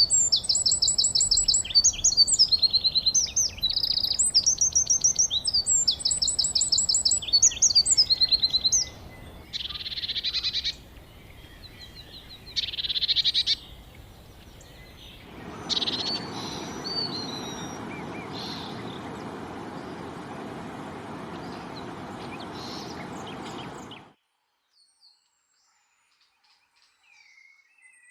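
Wild songbirds singing: loud, rapid trilled phrases, high-pitched and repeated, for the first several seconds, then quieter scattered calls. Partway through a steady hiss with faint bird calls takes over, and a few seconds of near silence follow near the end.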